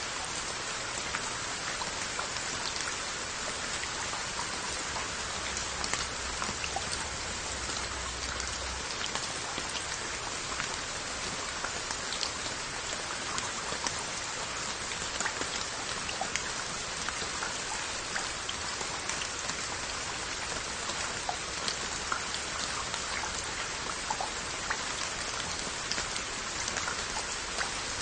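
Steady rain falling on glazed Korean earthenware onggi jars and their lids, an even hiss of rain with many single drops ticking sharply on the pottery.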